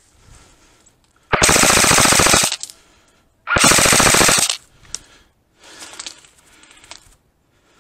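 Airsoft rifle firing two rapid full-auto bursts, each about a second long and about two seconds apart.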